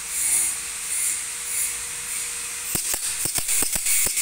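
Compressed air hissing in pulses through a pneumatic cylinder's speed-control (flow-control) fittings, then a quick run of sharp clicks about two-thirds of the way in.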